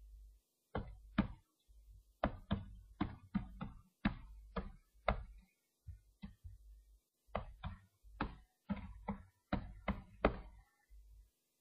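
Keystrokes on a computer keyboard: irregular clicks of typing, about two a second, with a short pause a little past halfway.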